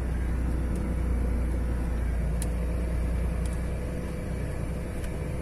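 Tractor-trailer's diesel engine running low and steady in first gear with little throttle, heard from inside the cab, with a few faint ticks.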